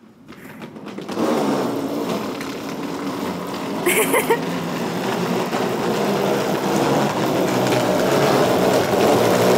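Wheels of a hard-shell rolling suitcase running up a concrete ramp: a rough, steady rolling rumble that starts about a second in and grows slowly louder as it comes closer, with a short higher sound about four seconds in.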